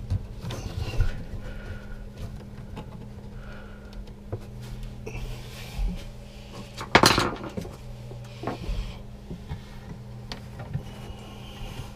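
Clicks, clinks and handling noise of hands and tools working on a plastic RV toilet vacuum breaker and its water line, with one louder clatter about seven seconds in, over a steady low hum.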